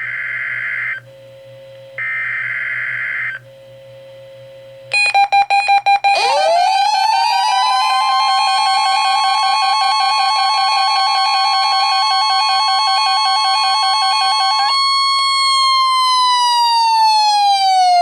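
Emergency alert tones for a weather-radio tone alarm test: two buzzing signals, then a quick burst of pulses. After that, a siren-like tone sweeps up to about 1 kHz and holds over a pulsing lower tone, and near the end it winds down in pitch.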